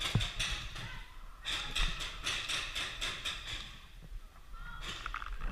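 Paintball markers firing rapid strings of shots, about five pops a second, in two long bursts with a few more shots near the end. The pops echo off the concrete walls and pillars.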